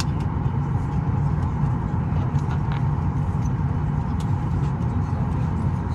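Cabin noise inside a Boeing 737 MAX 8 taxiing on its CFM LEAP-1B engines near idle thrust: a steady low rumble with a faint steady whine.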